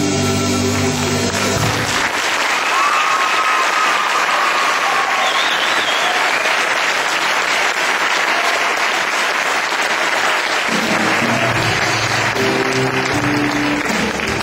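The music stops about two seconds in and an audience breaks into applause, with a few whistles over the clapping. Music comes back in near the end while the applause carries on.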